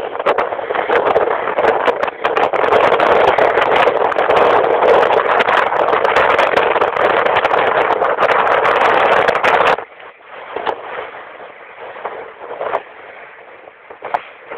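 Loud rushing noise of strong wind and moving water aboard a fishing boat. It stops suddenly about ten seconds in, leaving quieter rushing with scattered knocks.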